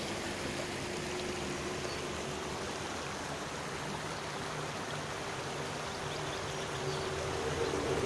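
Shallow mountain river running steadily over a rocky bed, a continuous rush of water over riffles and stones.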